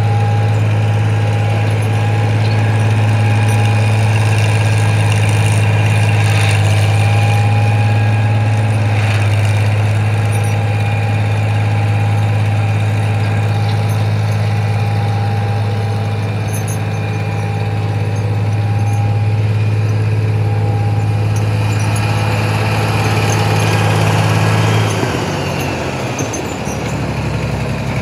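New Idea 702's supercharged V-6 engine running steadily at speed, with a high whine over the engine note. About three seconds before the end the revs fall off and the engine settles toward idle.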